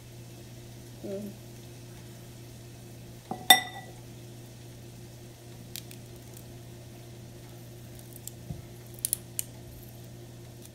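Steady low hum under quiet knife-and-avocado handling over a glass bowl, with one sharp ringing clink of the glass bowl about three and a half seconds in and a few faint light clicks near the end.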